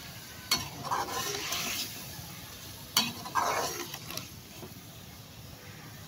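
Slotted metal spoon striking a metal pot twice and scraping through frying chicken and tomato pieces, which sizzle steadily; the stirring stops in the last couple of seconds and only the sizzle remains.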